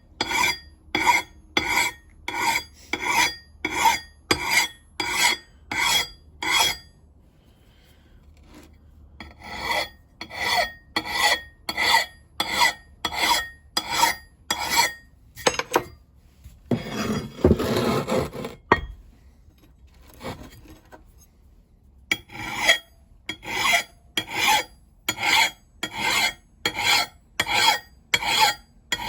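Hand file rasping across the steel edge of an axe head in steady back-and-forth strokes, about two a second, in runs broken by short pauses: the edge is being filed into shape. About two-thirds of the way through, a longer, louder scraping rustle interrupts the strokes.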